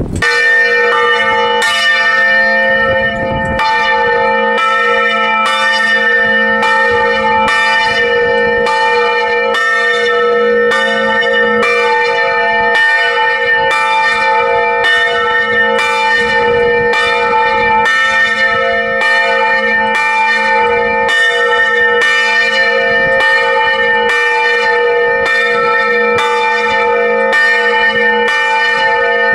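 Large bronze church bell swinging and ringing, its clapper striking a little under once a second, each stroke ringing on into the next. Heard from right beneath the bell in the belfry.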